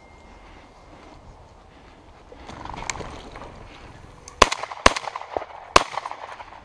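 Shotgun fired at a flushed game bird: three sharp, loud shots within about a second and a half, the first two close together. A louder rustle comes about three seconds in, before the shots.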